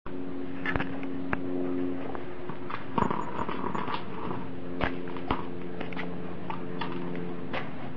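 A steady low hum with several sharp clicks and knocks scattered through it, and a short rustle about three seconds in.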